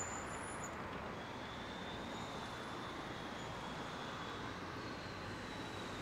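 Diesel engines of a Caterpillar 320C excavator and a Caterpillar 966F wheel loader running steadily under work, heard from a distance, with a faint high whine joining about a second in.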